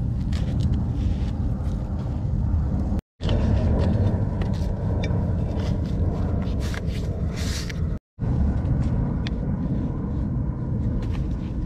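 Steady low rumble of wind buffeting an outdoor microphone, with faint rustles and clicks from handling a canvas case and a thin steel griddle plate. The sound cuts out completely for a moment twice.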